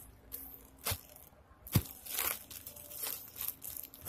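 Thin plastic bag crinkling as it is handled, with two sharp knocks: plastic slime jars set down on the table, the louder one just under two seconds in.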